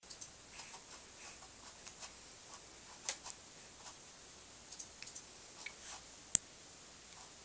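Scattered faint clicks and taps, with one sharp click a little over six seconds in.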